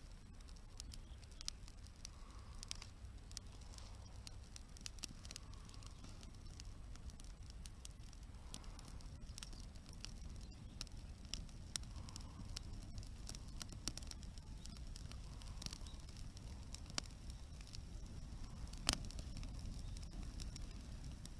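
Wood campfire crackling, with irregular sharp pops and one louder pop near the end, over a low steady rumble.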